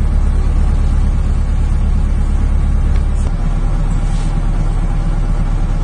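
Minibus driving along, its engine and road noise a steady low rumble heard from inside the passenger cabin; the rumble shifts in pitch about three seconds in.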